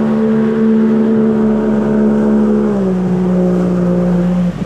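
Motorboat engine running at a steady speed, easing down to lower revs about three seconds in, then cutting out abruptly near the end as the boat is shut down on arrival.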